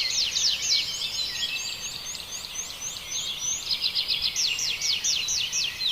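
A flock of small birds chirping all together: many quick, high, overlapping chirps, with a fast run of notes about four seconds in.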